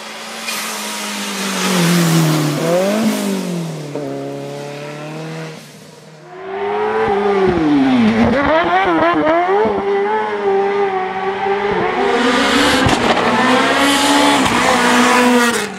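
Competition car engines at full throttle on a slalom course: one car revs and shifts up as it passes and fades about six seconds in, then a louder one comes in, its revs swinging quickly up and down under throttle as it goes through the course.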